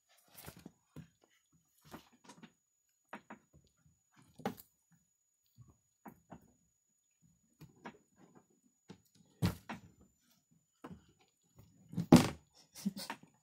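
Irregular light knocks, taps and rustles of handling and movement, with a louder thump about nine and a half seconds in and a cluster of thumps about twelve seconds in.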